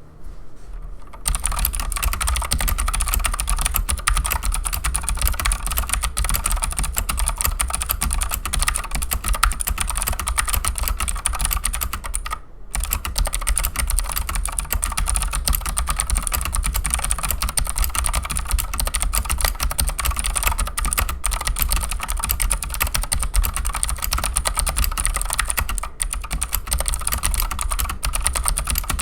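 Fast, continuous typing on a Keychron C2 mechanical keyboard with stock Gateron Blue clicky switches and stock keycaps: a dense clatter of key clicks. It starts about a second in, with a brief pause about halfway through.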